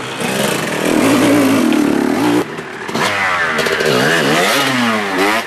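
Two dirt bikes ridden past one after the other. The first engine runs loud for about two seconds and cuts off suddenly; the second revs up and down repeatedly as it comes through.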